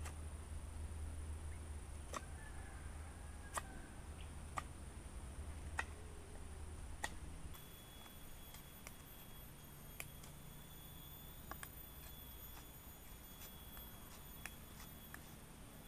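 Folding knife whittling a wooden stick: sharp, separate clicks of the blade biting into the wood, about one a second at first, then lighter ticks as smaller cuts are made. A thin, steady high tone runs behind.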